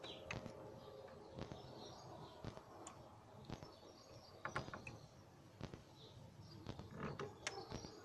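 Scattered light knocks and clicks as a hinged wooden bird-feeder pole is swung up by hand, with a few faint bird chirps behind.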